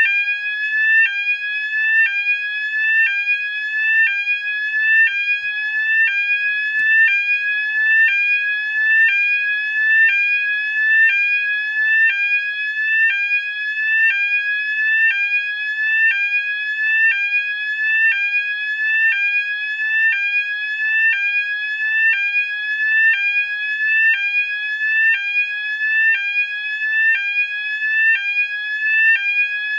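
Electronic fire alarm sounder going off continuously with a sweeping tone: each sweep rises in pitch and then drops back sharply, about once a second. It is very loud at close range, about 101–103 dB on a sound level meter beside it.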